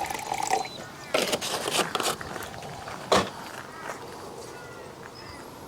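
Liquid nutrient pouring into a measuring container, stopping about half a second in, followed by a few short knocks and clunks of handling.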